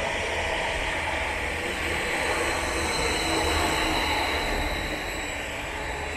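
Greater Anglia Class 745 electric multiple unit pulling out of the station past the platform. Wheel-and-rail rumble mixes with a thin, high electric whine. It grows a little louder about halfway through, then eases off near the end as the train draws away.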